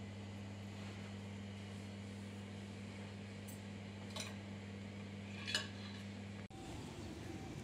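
Room tone: a steady low hum over a faint hiss, with two light ticks about four and five and a half seconds in. The hum cuts off abruptly near the end and gives way to a different, noisier background.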